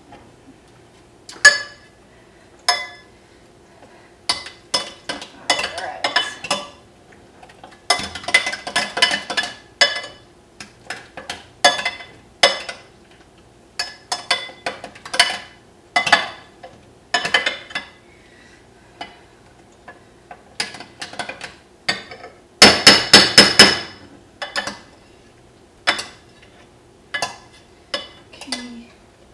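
Potato masher clinking against a glass bowl while mashing boiled potatoes: irregular clusters of sharp, ringing clinks, busiest about eight seconds in and again near the end.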